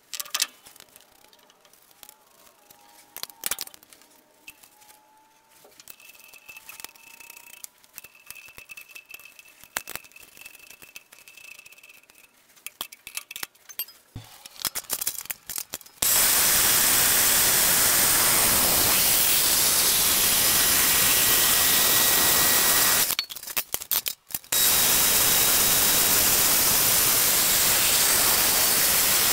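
A few light clicks and taps of exhaust parts being fitted by hand. About halfway through, a Jet horizontal metal-cutting bandsaw starts cutting a pre-bent steel exhaust tube with a loud, steady, even noise, which breaks off for about a second and then carries on.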